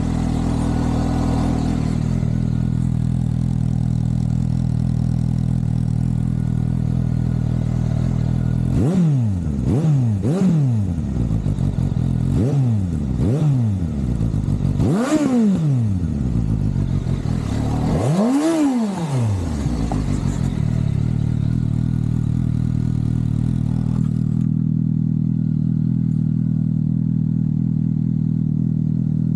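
Suzuki GSX-S750's inline four-cylinder engine idling steadily, then revved in about six quick blips starting about a third of the way in, the last one the highest and longest, before dropping back to a steady idle.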